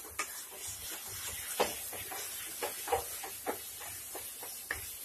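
Wooden spatula stirring and scraping a thick mixture of grated bottle gourd and khoya in a non-stick kadhai, in irregular short strokes over a steady hiss of frying in ghee.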